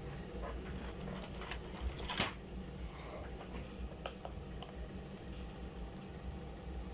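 Steady low hum with scattered light clicks and handling noises, the loudest a short click about two seconds in.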